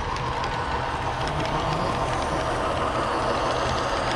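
HO scale model freight train rolling past, its boxcar and flatcar wheels running on the rails with a steady rolling noise and faint, irregular clicks.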